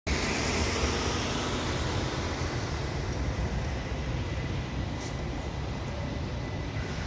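O-Train Line 2 Stadler FLIRT diesel train drawing slowly into the station: a steady low engine rumble with a faint high steady whine over it. A short click sounds about five seconds in.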